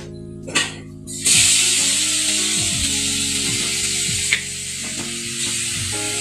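Chicken pieces sizzling in the hot, oiled inner pot of an electric rice cooker. The sizzle starts suddenly about a second in and keeps up steadily, with a sharp clack about four seconds in. Background music plays underneath.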